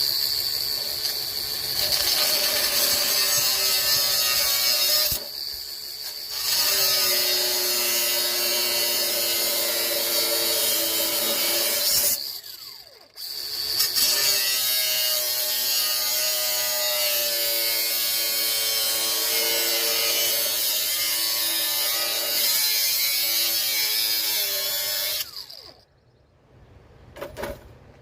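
A power tool cutting metal, running in three long passes with two brief pauses, and a wavering whine over a harsh grinding noise.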